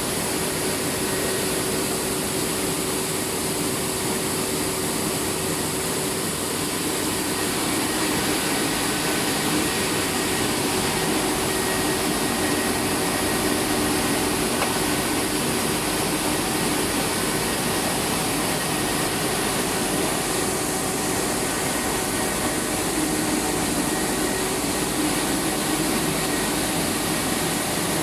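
Rice milling plant machinery running steadily under power: a continuous mechanical whirr and rush with a low, even hum.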